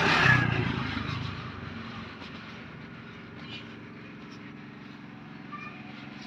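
A motor scooter passing close by, its engine and tyre noise fading away over the first two seconds. A low steady hum carries on after it.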